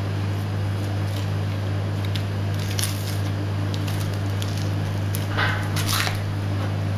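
Boning knife cutting and scraping against the bone of a hanging beef forequarter as the chuck is cut free: a few short scrapes and clicks, bunched together about five and a half seconds in, over a steady low hum.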